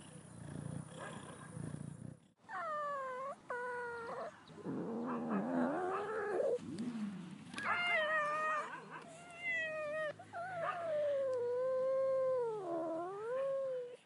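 Domestic cat sounds: a low, evenly pulsing purr for the first two seconds, then a run of meows. There are two short meows, a lower drawn-out wavering call, several more meows, and a long yowl near the end whose pitch sags and rises again.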